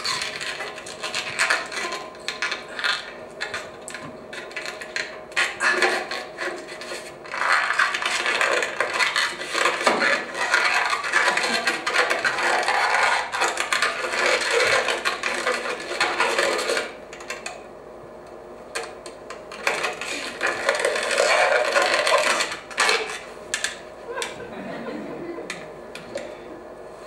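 A long rubber modelling balloon being rubbed, stretched and twisted by hand, giving a run of rubbery squeaks and scraping with a quieter stretch about two-thirds of the way through. It is heard as playback over a venue's loudspeakers.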